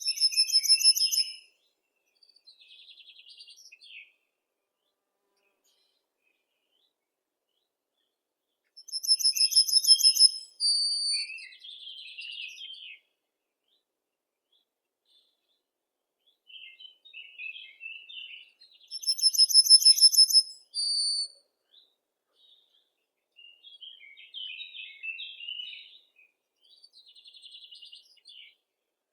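Birdsong: a loud, rapid trill lasting about a second and a half, then a short higher note, sung three times about ten seconds apart. Softer scattered chirps and twitters fill the gaps, with no other background sound.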